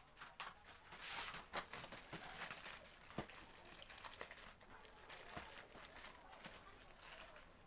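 Plastic wrapping crinkling and rustling as a bundled power cord is pulled free of its plastic packaging, with a few sharp crackles along the way.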